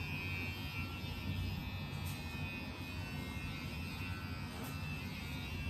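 Electric pet hair clippers running with a steady buzz, shaving a long-haired Persian cat's matted fur around its rear.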